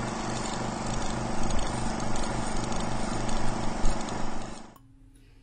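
Engine running steadily with an even, rhythmic lope, fading out about four and a half seconds in.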